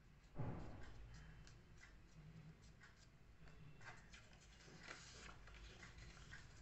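Faint handling of white paper strips as they are folded and creased by hand: soft rustling and crinkling with scattered small ticks. A dull thump, the loudest sound, comes about half a second in.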